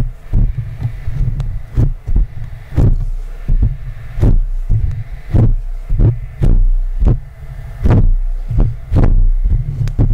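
Fingers rubbing and tapping directly on a condenser microphone's metal mesh grille, giving a run of deep rubbing thumps about one or two a second with light scratchy ticks between them.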